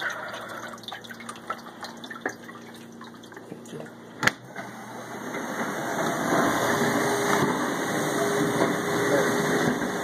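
Whirlpool dishwasher: faint dripping from the open tub, then the door shuts with a sharp latch click about four seconds in. The wash resumes, water spraying inside the tub with a steady pump hum, building up over a second or two.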